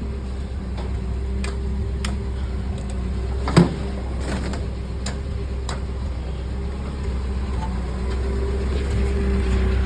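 Vehicle engine running steadily, with a few sharp clicks and one loud knock about three and a half seconds in; the engine gets a little louder near the end.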